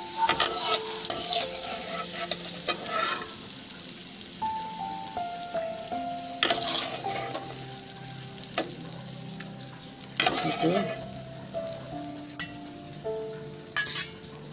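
Food sizzling as it fries in oil in a wok, stirred with a metal slotted spatula that scrapes and knocks against the pan every couple of seconds.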